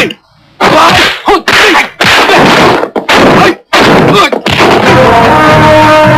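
Kung-fu film fight soundtrack: a run of loud punch and kick impact effects with yells, broken by short gaps. Music with held notes comes in about five seconds in.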